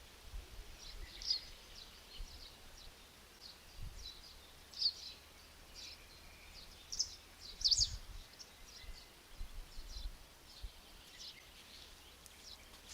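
Small birds chirping, many short high calls scattered irregularly over a faint outdoor hiss, with a couple of soft low thumps.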